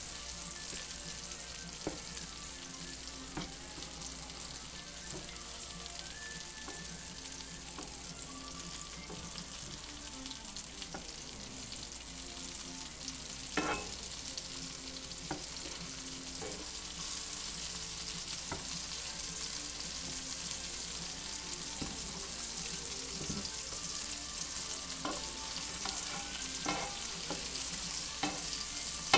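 Meatballs sizzling steadily as they fry in oil in a pan, with scattered clicks of metal tongs against the pan as they are turned. The sharpest click comes about halfway through.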